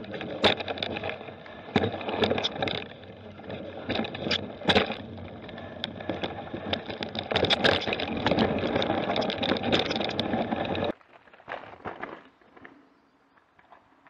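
Mountain bike ridden over a forest trail, heard from a camera on the bike: steady rumbling tyre and rattle noise with many sharp knocks and clicks over bumps. About eleven seconds in it cuts off suddenly to a much quieter stretch with only a few faint clicks.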